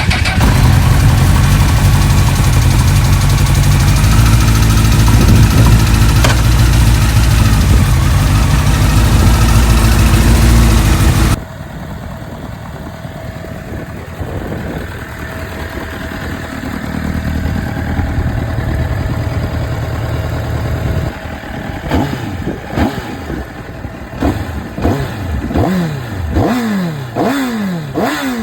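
Engine running, presented as having an abnormal noise whose cause is not named. For the first eleven seconds it is loud and close. It then cuts suddenly to a steadier run with a thin steady whine, and from about three quarters of the way in it is revved in quick repeated blips, the pitch rising and falling each time.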